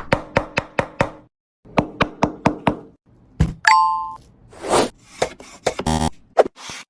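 Two quick runs of sharp knocks, about six a second, then a short ringing chime and a brief swish, followed by a few more knocks.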